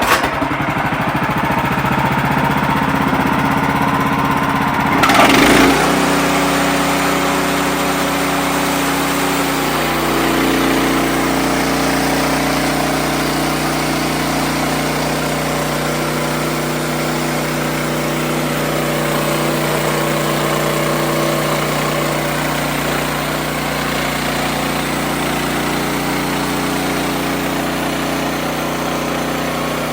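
Wood-Mizer LX55 sawmill running steadily. There is a brief louder burst about five seconds in, and its pitch pattern shifts around ten seconds in.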